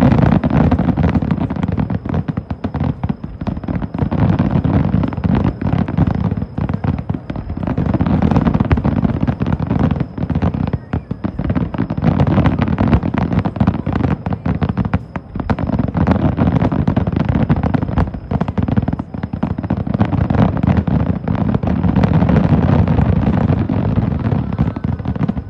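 Aerial fireworks going off in a dense, continuous barrage of booms and crackling bursts, with only a few brief dips in intensity.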